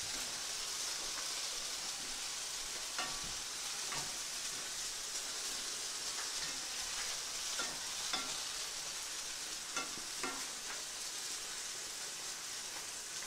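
Steady sizzle of sausages frying in oil in a cast-iron skillet, with a few brief scrapes of a utensil stirring cabbage in an enameled pot.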